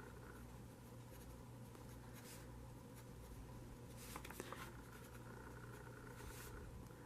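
Faint scratching of a Lamy Safari fountain pen's fine steel nib writing on Traveler's Notebook (Midori) blank paper, coming in short bouts of strokes over a low steady hum.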